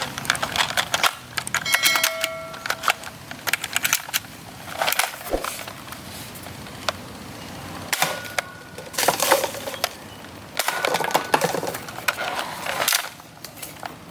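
Plastic toy blaster being handled: a run of irregular clicks, rattles and knocks, with a few short tones mixed in.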